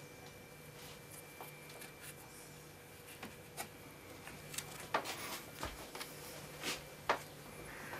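Faint, scattered clicks and rustles of fingers and a thin modelling tool working the skin around a mounted animal head's mouth, more frequent in the second half, over a steady low hum.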